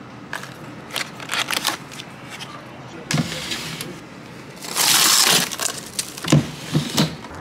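Plastic cups of ice rattling and crinkling as they are picked out of a freezer chest, with a louder rush of noise about five seconds in and a few dull knocks near the end.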